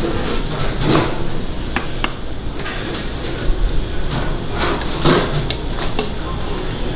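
Irregular knocks of a knife on a wooden cutting board as barbecue meat is cut, over steady background noise.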